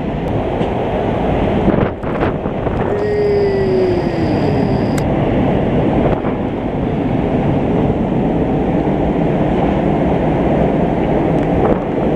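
Storm waves breaking over the sea wall and surging across the promenade, a continuous loud roar of water, with wind buffeting the microphone.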